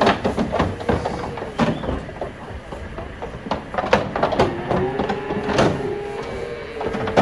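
Metal livestock trailer clattering and banging as young calves are unloaded through a gate, with many sharp knocks over a steady hum.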